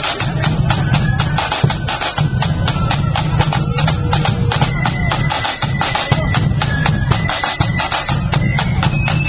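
Marching flute band playing: flutes carry a tune over rapid drumming.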